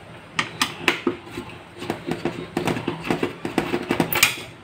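Irregular clicks and knocks of a circuit board and sheet-metal chassis being handled as the power supply board is worked loose from an opened Samsung LCD monitor.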